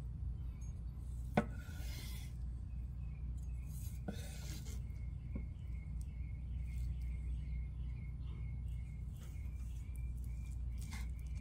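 A chef's knife slicing through a grilled tuna steak and rasping against a bamboo cutting board, with a sharp tap of the blade on the board about a second in, followed by two longer rasping strokes and fainter cuts later.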